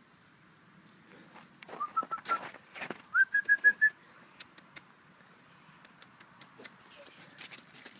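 A person whistling to call a puppy: a quick rising whistle followed by four short even pips, given twice about a second apart, the second phrase higher. Light clicks and knocks in between.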